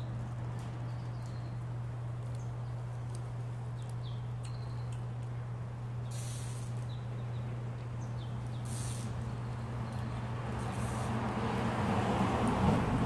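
A cat hissing: three short hisses a couple of seconds apart in the second half, over a steady low hum. A louder rustle swells near the end.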